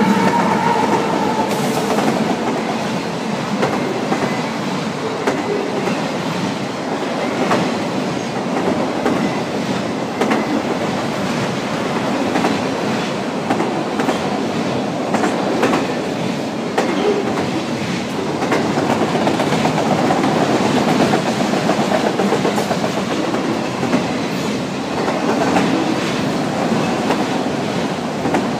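Freight train rolling past close by: a locomotive and then a long string of autorack cars, steel wheels clicking over the rail joints in a steady rumble. A horn blast dies away in the first second or so.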